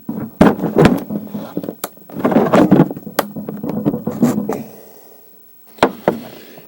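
Clicks, knocks and scraping as a small camera module is worked out of a laser handpiece housing: several sharp clicks, with a longer stretch of scraping and rustling in the middle.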